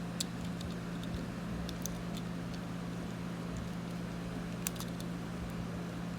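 Steady low electrical hum of the room, with a few faint light clicks of a small plastic toy car being handled.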